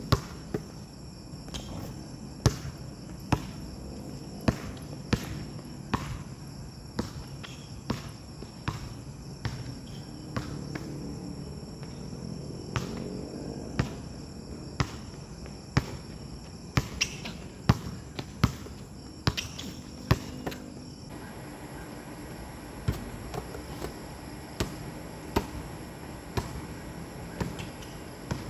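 A basketball dribbled on an outdoor hard court: sharp single bounces at an uneven pace of about one a second, with steady high insect chirring underneath.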